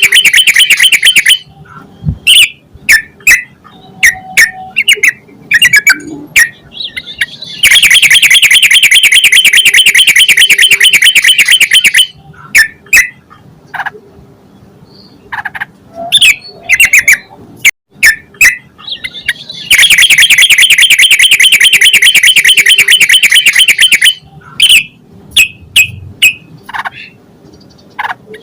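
Yellow-vented bulbul (trucukan) calling: loud, rapid rattling chatter in bursts of about four seconds, three times, with short separate sharp notes between them.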